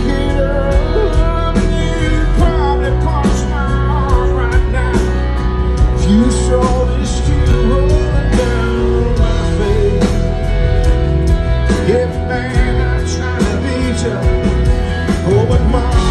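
Live country band playing a slow ballad through a PA, acoustic and electric guitars with drums, a male voice singing over it, heard from within the crowd.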